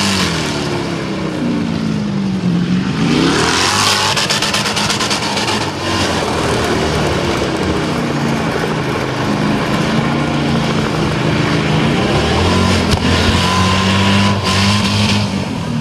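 Holden VY SS Commodore's naturally aspirated LS1 V8 held at high revs during a burnout, its rear tyres spinning in smoke. The revs sag about a second in, climb sharply around three seconds, then keep rising and falling, and drop again near the end.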